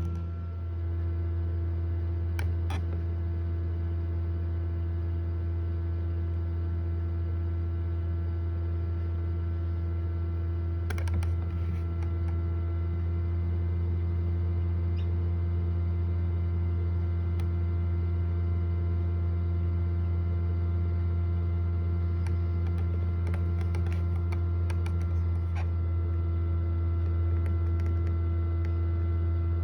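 Steady low hum of a Hovabator egg incubator running, with a few faint clicks and taps now and then.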